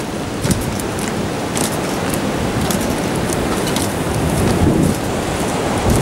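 Gale-force wind blowing across the camera microphone: loud, steady rushing wind noise, with scattered crackles through it.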